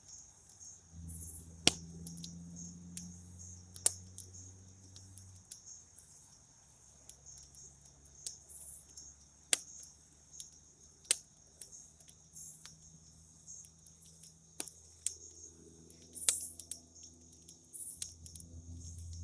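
Campfire crackling, with irregular sharp pops and snaps, over crickets chirping steadily in a high pulsing trill. A faint low hum runs underneath.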